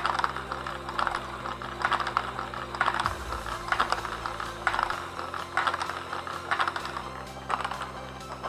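Lego Technic Great Ball Contraption module running: plastic gears and parts clattering and balls knocking through the mechanism in bursts of clicks about once a second.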